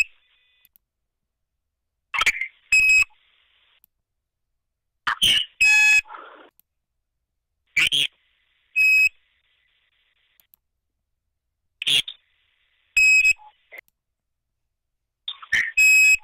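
Garbled, robotic-sounding noises on a voicemail phone line: five times, a short warbling burst followed by a short high beep, about every three seconds, with silence between. The uploader takes these noises for a sign that the calls are being wiretapped.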